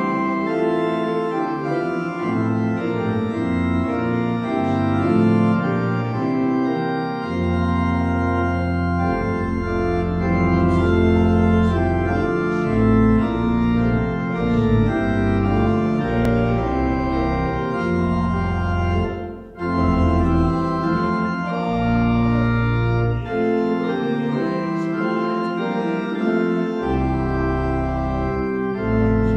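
Organ playing a hymn tune in held chords, the bass note changing every second or two, with a brief break between phrases about two-thirds of the way through.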